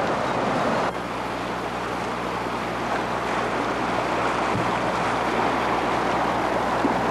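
Whitewater river rapids rushing steadily, with a slight drop in level about a second in.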